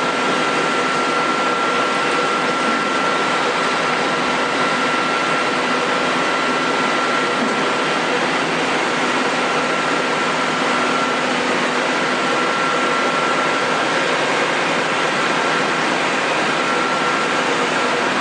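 Amera Seiki CNC lathe running: a steady, even machine hiss with a high, steady whine that fades out briefly twice.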